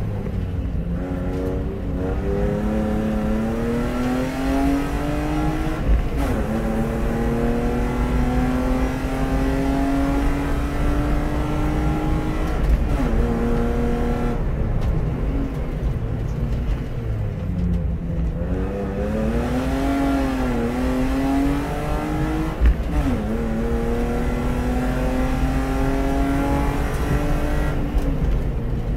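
BMW E36 320i race car's 2.0-litre straight-six under full throttle, its pitch climbing steadily and dropping sharply at each upshift, about three times, with one brief lift and pickup in the middle as it slows for a bend and accelerates again.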